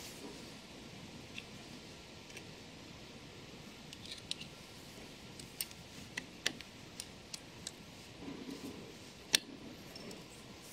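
Irregular small metallic clicks and taps as a steel dividing plate and its sector arms are handled and fitted onto a gear cutter spindle by hand, with one sharper click near the end.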